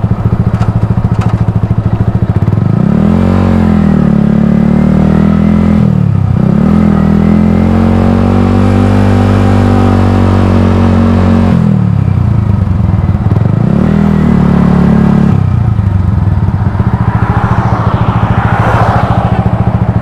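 Yamaha R15 V2's 150 cc single-cylinder engine under way, heard from the rider's seat. The engine note rises and falls several times and holds steady in between.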